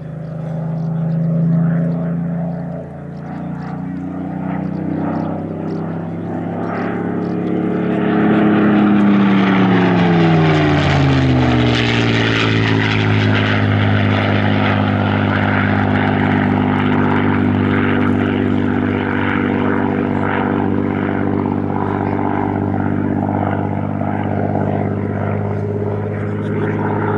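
Spitfire PR XI's Rolls-Royce Merlin V12 engine droning in a display flypast: it grows louder, drops in pitch as the aircraft passes about ten seconds in, then drones on steadily.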